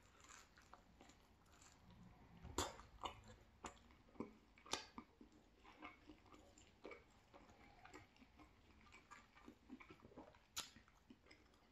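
A person chewing a bite of thin-crust cheese pizza: faint, irregular chewing clicks and crunches, with a few sharper ones about two and a half, four and a half and ten and a half seconds in.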